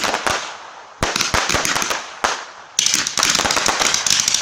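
Consumer fireworks battery (cake) firing: sharp bangs spaced out at first, then from about three seconds in a dense, rapid crackling of many small reports.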